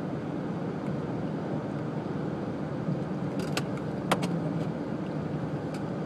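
Steady engine and road noise heard from inside a moving car, with a few sharp clicks or ticks a little past halfway.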